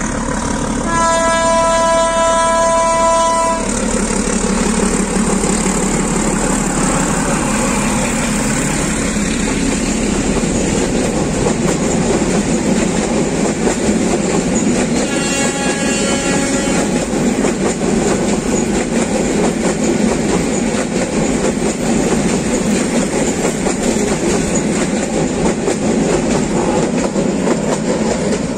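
Diesel locomotive sounding its horn for about two and a half seconds, starting about a second in, then a passenger train passing close with steady engine and wheel-on-rail noise; a second, fainter horn blast about halfway through.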